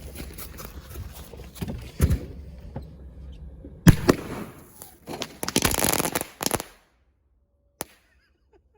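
Fireworks going off inside a closed microwave oven: a steady crackle, a sharp bang about two seconds in, a louder bang near four seconds, then a spell of rapid crackling that stops abruptly about seven seconds in.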